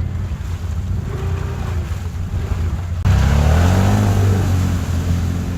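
ATV engine running, then revved hard about three seconds in, its pitch rising for a moment before it eases back.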